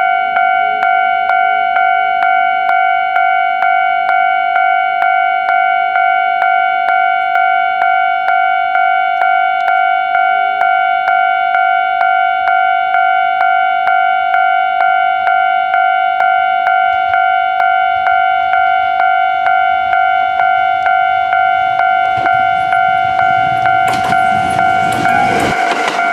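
Japanese level-crossing electronic warning bell ringing in a steady clang about twice a second, signalling an approaching train. Near the end the approaching Kintetsu 30000 series and 22600 series train rumbles up to the crossing.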